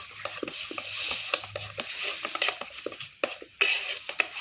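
Pancake batter being stirred by hand in a bowl: the utensil taps and scrapes against the bowl in quick, irregular strokes.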